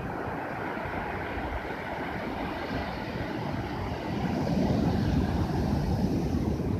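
Ocean waves washing in, a steady rush with a wave swelling louder about four seconds in.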